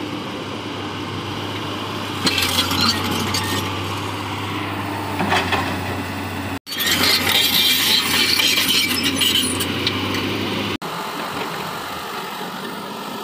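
Crawler excavator's diesel engine running steadily as it digs, with bursts of metallic clinking and rattling from the working machine, the loudest run lasting about four seconds in the second half.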